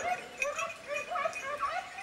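A pack of hunting hounds baying on a chase: many short, overlapping yelps following one another rapidly.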